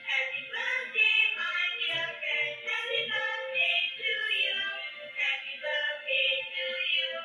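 Dancing cactus toy playing a song through its small speaker: a tinny sung voice over music, with almost no bass.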